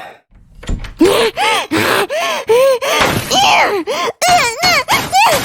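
Cartoon character voices making wordless, gibberish vocal sounds: a quick run of short syllables, each rising and falling in pitch, that speeds up toward the end, after a soft thump about a second in.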